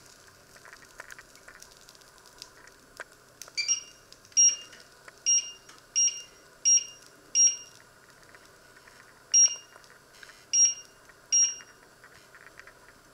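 Touch-control panel of a glass-ceramic hob beeping as its buttons are pressed to set the power level and timer: nine short, high beeps, starting about three and a half seconds in, coming in irregular steps with a longer gap before the last three.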